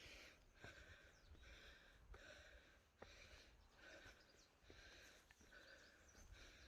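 Faint, rhythmic heavy breathing of a hiker climbing a steep trail, in and out about once a second, with a few light ticks of footsteps or brush.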